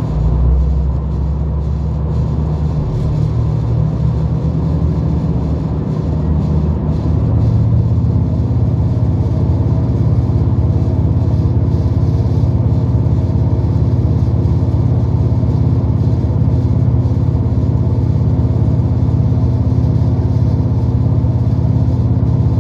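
Diesel railcar engine of a V/Line train running as a steady low drone heard inside the carriage. It grows louder and deeper about seven seconds in as the train pulls away and gathers speed.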